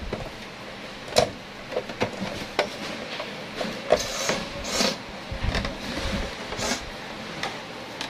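Parts of an Epson LX-310 dot-matrix printer being handled and worked back into place by hand: irregular plastic clicks, knocks and a few short scrapes.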